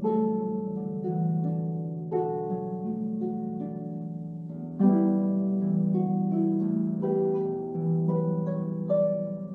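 A large floor harp played slowly: plucked notes and chords ringing on over one another. Fresh chords are struck at the start, about two seconds in, loudest about five seconds in, and again near the end.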